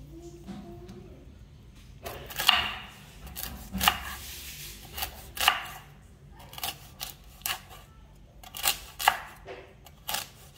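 Knife chopping through a hard, ripe noni fruit, a sharp cut-and-strike about once every second or so, unevenly spaced.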